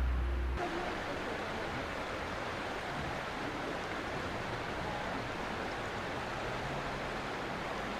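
Steady rush of flowing water. A low rumble breaks off about half a second in.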